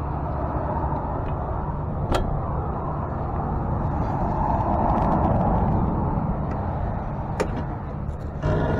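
Flatbed tow truck running as a car with a seized wheel is pulled onto the bed, a steady mechanical drone with a sharp click about two seconds in and another near the end.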